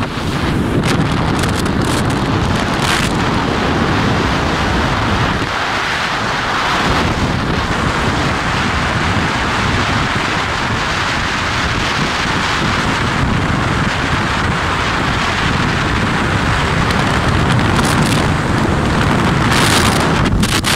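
Wind buffeting the microphone on a moving motorcycle: a loud, steady rushing noise, briefly thinner in the low end about six seconds in.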